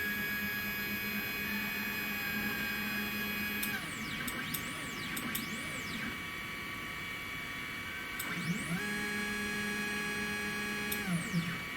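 Stepper motors of a 3018 CNC router moving the axes: a steady whine that winds down and stops about 4 s in, a few short moves that rise and fall in pitch, then another steady run that winds up about 8.5 s in and winds down near the end.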